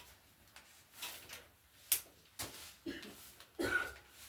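Rustling, scratching and clicking of packaging being handled, a few short scrapes with one sharp click about two seconds in.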